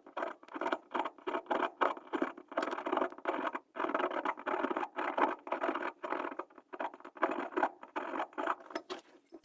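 A small brush scrubbing the rusty metal burners of a gas furnace, in quick irregular strokes, several a second, to clear rust from the burner holes and crevices.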